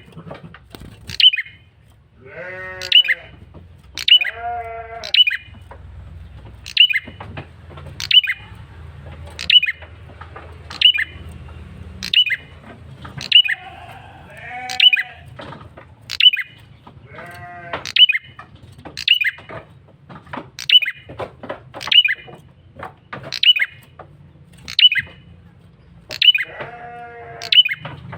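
A male prenjak kepala merah calling insistently as a lure: short, sharp, high notes repeated about once a second. A lower, buzzy call breaks in a few times, near three, four, fifteen, eighteen and twenty-seven seconds in.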